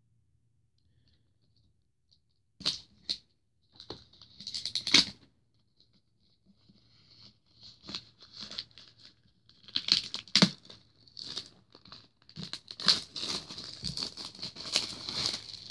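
Plastic shrink-wrap being torn and peeled off a hardcover book, crinkling. A couple of sharp crackles come about two and a half seconds in, then more frequent tearing and crinkling in bursts, densest and loudest over the last few seconds.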